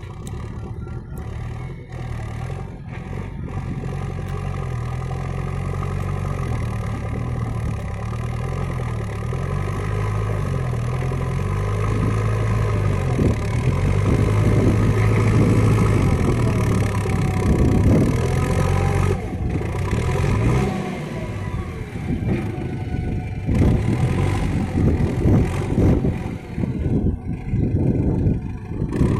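Diesel engine of a JCB backhoe loader running and rising in revs over the first dozen seconds, then working under load with irregular knocks and clatter from about halfway in.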